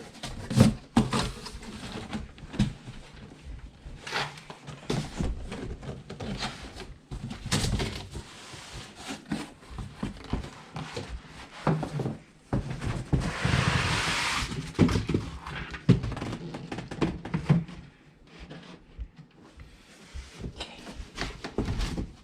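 Irregular thunks, knocks and rubbing as a new aquarium and its packaging are handled and moved, with a short hiss about 13 seconds in.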